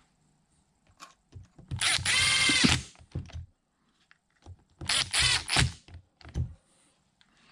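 Cordless drill-driver running the cover screws into the power-feed gearbox cover, in two short runs of about a second each with a wavering motor whine. Scattered knocks and clicks of metal parts being handled come between the runs.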